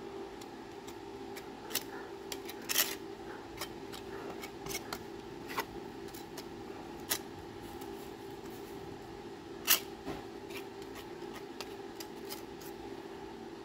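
A putty knife spreading two-part panel adhesive onto a sheet-metal patch panel: scattered light scrapes and short clicks of metal on metal, the sharpest about ten seconds in, over a steady background hum.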